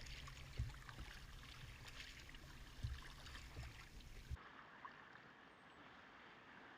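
Faint water sounds of kayak paddling, with a few light splashes and drips and low wind rumble on the microphone. About four seconds in, the sound changes abruptly to a quieter, duller hiss.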